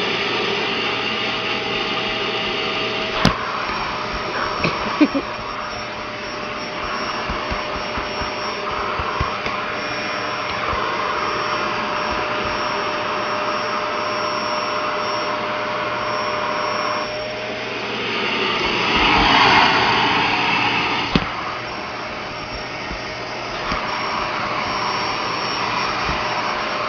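Vacuum cleaner running steadily, with a few knocks near the start and its sound growing louder and brighter for a few seconds past the middle before settling back.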